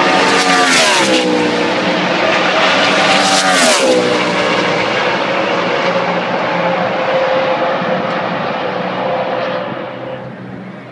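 NASCAR Sprint Cup stock cars' V8 engines at racing speed passing close by, the engine note dropping sharply in pitch as a car goes past about a second in and again near four seconds in. Engine sound carries on steadily afterwards and fades near the end.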